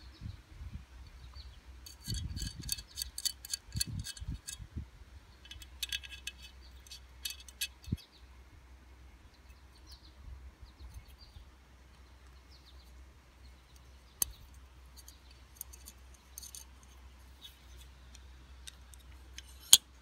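Titanium-handled Maxace Sandstorm V2 folding knife being worked in the hand: several runs of rapid small metallic clicks and clinks from the blade, pivot and lock, with one sharp snap near the end.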